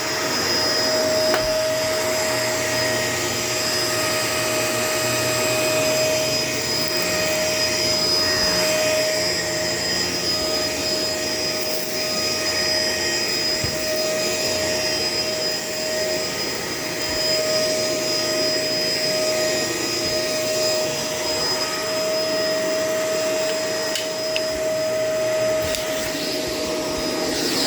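Shark LA702 vacuum cleaner running steadily: a constant motor whine over the rush of air.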